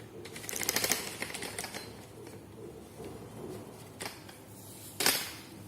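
Delivery packaging being torn open by hand. A fast run of crackling clicks comes in the first second, then a short, loud crackle about five seconds in.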